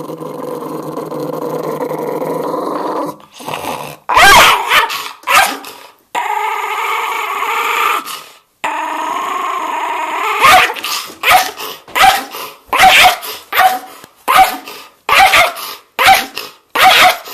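Angry schnauzer growling steadily, breaking into a few loud snarling barks, growling again, then letting off a quick run of sharp snarling barks, more than one a second, near the end.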